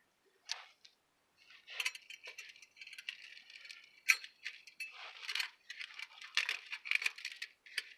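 Small metal parts of an exhaust clamp clinking and rattling as they are handled and fitted by hand: one click early, then a steady run of clicks, clinks and scrapes.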